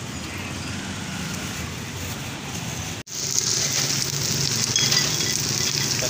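Steady market background with a low rumble, then after a sudden cut about three seconds in, a louder hiss of greens sizzling in hot oil in a wok as they are stirred with a metal spoon.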